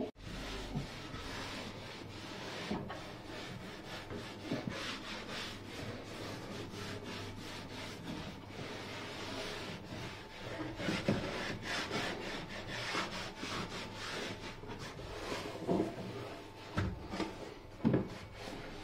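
Wooden cabin woodwork being scrubbed by hand with an abrasive pad to clean it before varnishing: fast, scratchy back-and-forth rubbing strokes, with a few knocks in the second half.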